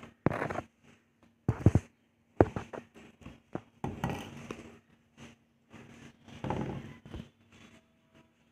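Irregular knocks, thumps and scrapes of a painted cement lump being handled and shifted about on a wooden table.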